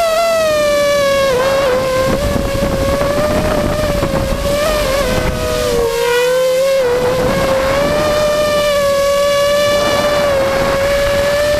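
An engine running steadily at high revs, one strong droning tone with overtones, its pitch wavering slightly and dipping briefly about six seconds in.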